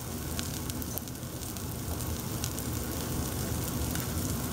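Chopped onions and garlic sizzling steadily in olive oil in a stainless saucepan, with scattered light crackles: the aromatics sweating down as the base for a rice pilaf.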